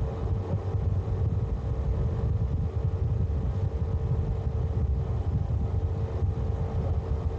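Ship's machinery running steadily below decks: a continuous low rumble with a constant mid-pitched hum over it.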